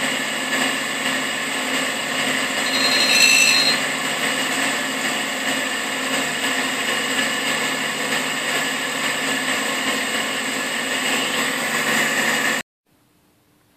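Russian clone of a Cincinnati No. 2 tool and cutter grinder running steadily with its dish wheel spinning. About three seconds in there is a brief high-pitched ringing as the wheel grinds the end mill's flute. The sound stops abruptly near the end.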